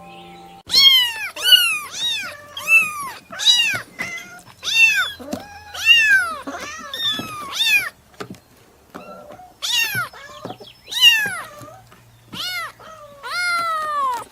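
Baby kitten meowing over and over: short, high-pitched meows, each rising then falling in pitch, about one and a half a second. The calls pause for about a second and a half around eight seconds in, then start again.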